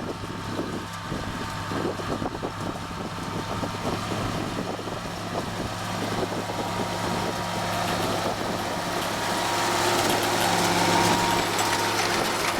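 Tractor engine running steadily while it pulls a New Holland 850 round baler converted into a swath lifter, with the rattle of the working machinery over the engine hum. The sound grows louder toward the end.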